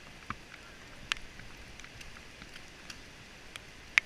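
Scattered sharp snaps of airsoft gunfire at irregular intervals, with the loudest just before the end.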